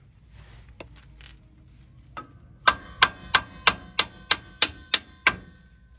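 A small mallet striking a rear shock absorber's lower end, knocking it back into its mount: about nine sharp blows, roughly three a second, each with a short metallic ring, after a few lighter taps.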